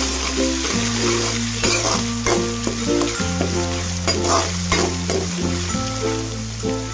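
Green chilli paste and sliced onions sizzling in hot oil as a spatula stirs them, with a few scrapes against the pan, over background music.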